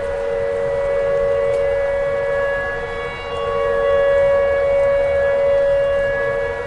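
Tornado warning siren sounding at a steady pitch, its loudness swelling and fading, with a dip about three seconds in.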